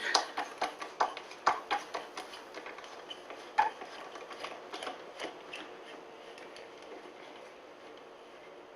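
A screwdriver working a tight old screw out of the wooden center lamm guide of a 1942 Macomber loom, heard as a string of irregular clicks and scrapes that thins out after about five seconds.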